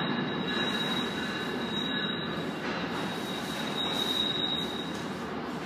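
Amtrak Northeast Regional passenger coaches rolling slowly into the station: a steady rumble of the wheels on the rails, with a thin, high wheel squeal at the start that comes back strongly about four seconds in.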